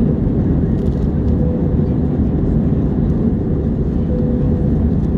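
Steady low rumble of an Airbus A321's jet engines and rushing air heard inside the passenger cabin, with a faint steady whine above it.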